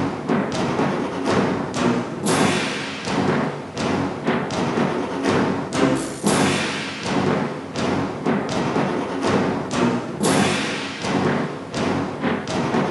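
Orchestral background music with a steady beat of drum hits and a loud swell about every four seconds.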